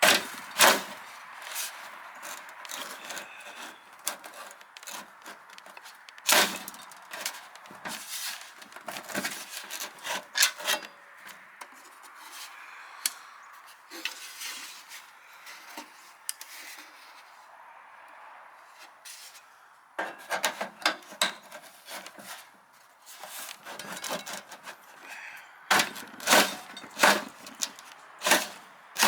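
Metal downspout sections being handled and fitted, with scraping and rubbing and scattered sharp knocks. It goes quieter a little past halfway, then there is a run of louder knocks near the end.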